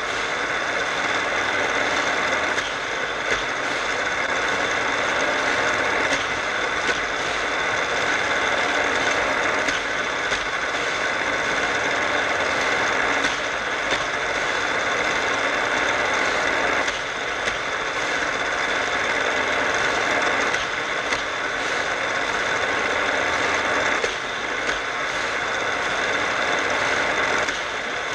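Battery-powered Hot Wheels track booster motor running steadily, its hum dipping briefly about every three and a half seconds as die-cast cars pass through it, with the cars rolling along the plastic track.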